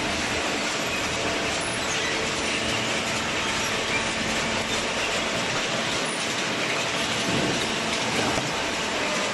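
Hydraulic paper baler machine running, a steady mechanical noise that holds level throughout.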